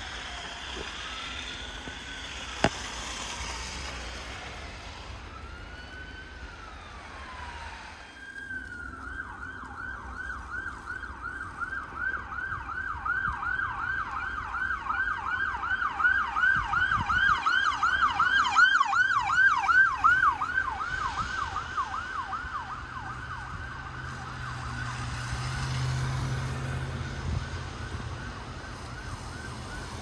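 Police escort car sirens: a slow rising-and-falling wail, switching about eight seconds in to a fast yelp that grows louder and then fades away. Near the end a vehicle passes with a low engine hum.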